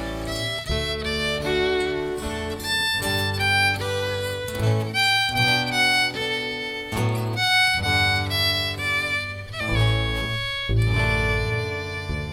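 Live band music with a fiddle playing the lead melody over guitar and a bass line; the final chord rings out and fades near the end.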